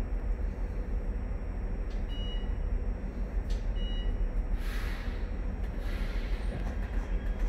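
Inside a CAF metro car: a steady low rumble of the train's running equipment, with two short high beeps about two and four seconds in, and a couple of brief air hisses a little later.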